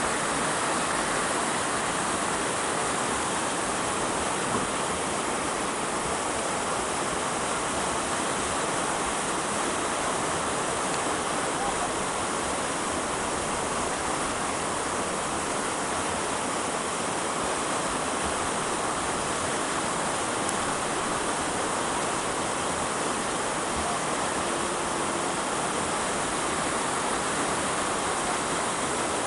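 Steady rushing of river water, an even unbroken wash.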